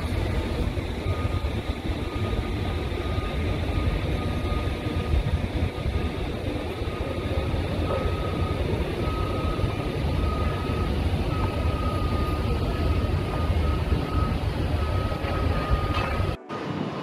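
Steady low outdoor rumble of a port heard from a ship's upper deck, with a faint thin high tone coming and going over it. The sound cuts out for a moment near the end.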